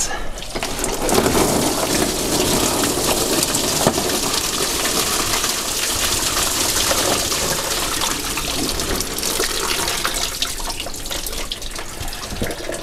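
Engine coolant pouring in a steady stream out of a 1973 Range Rover V8's cooling system into a tub as the system is drained. The flow slackens slightly near the end.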